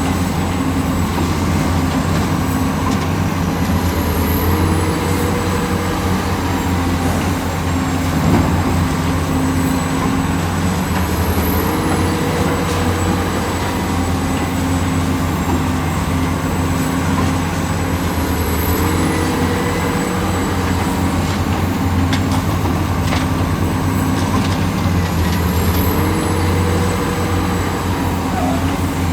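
Heavy construction machine's engine running steadily with a low hum. A short rising-and-falling tone recurs about every seven seconds.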